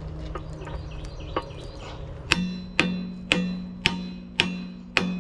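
Hammer blows on steel at the excavator's bucket pin joint, driving a spacer or grommet into place: a few light taps, then six sharp ringing strikes about two a second, starting a little over two seconds in.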